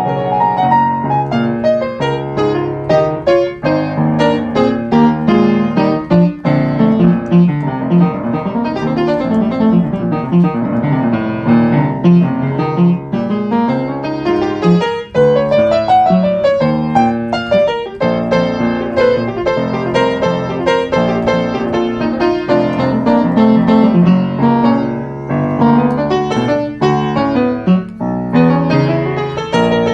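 Piano music, with quick runs of notes rising and falling.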